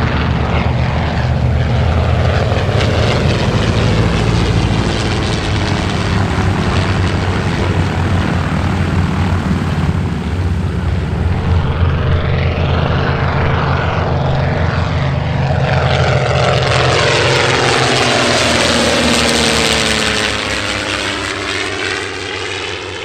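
Vintage piston-engined propeller aircraft flying past, engine note steady and then swelling loudest about two-thirds of the way through, pitch sliding down as it passes before fading.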